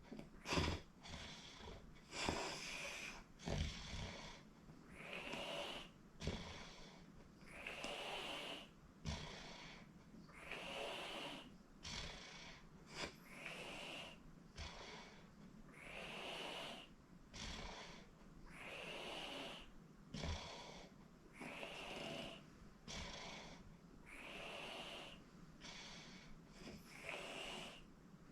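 A sleeping person snoring in a steady rhythm, about one breath every two and a half to three seconds, each with a rising whistling wheeze. A few short snorts come in the first few seconds.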